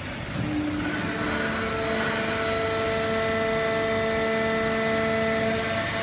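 Fully automatic horizontal hydraulic waste-paper baler running: a steady machine drone with several steady whining tones that set in about a second in.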